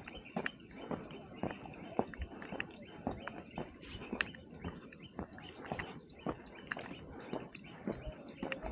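A steady, high-pitched insect drone, with irregular short clicks and knocks of footsteps on the ground, about two or three a second.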